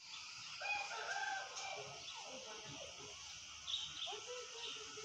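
Chickens calling: a drawn-out call about a second long near the start, then short clucks, a few brief high chirps and a longer low call toward the end, over a steady high hiss.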